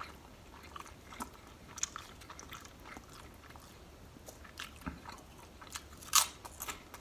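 Close-miked chewing of a sub sandwich: soft, scattered mouth clicks, with a louder bite into a piece of bread about six seconds in.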